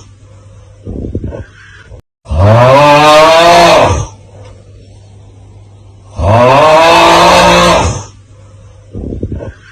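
The 'Aauuggh' meme sound on loop: a man's loud, drawn-out 'aauuggh' groan, each one under two seconds long with the pitch rising then falling, heard twice. A short, faint rasping sound comes about a second in and again near the end.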